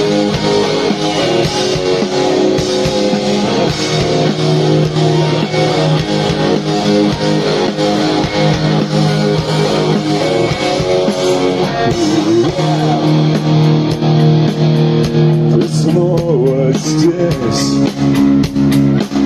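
Live rock band playing loudly: a guitar-led passage over bass, with sharp drum and cymbal hits coming through more clearly near the end.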